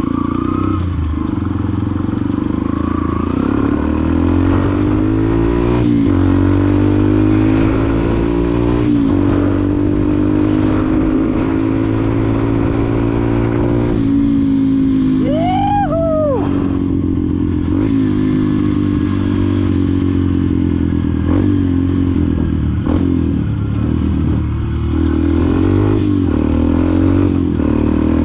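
Yamaha XTZ 125's single-cylinder four-stroke engine through a Fortuna F1 mini trioval aftermarket exhaust, ridden hard. The revs climb through each gear and drop at the shift, several times over. About halfway, a brief whistle-like tone rises and falls over the engine.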